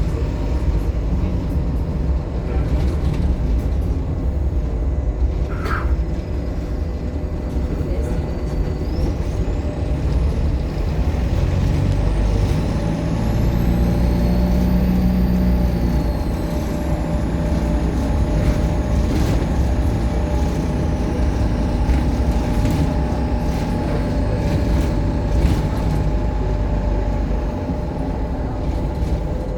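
Optare Solo M880 bus's diesel engine running under way, with a high turbocharger whine that rises and then falls in pitch over several seconds, over a steady low engine rumble and a few short rattles.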